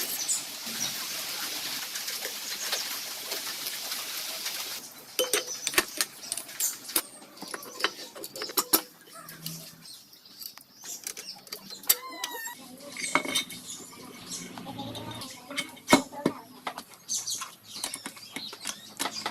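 A steady hiss for about the first five seconds, then irregular clinks and taps of metal engine parts and tools being handled.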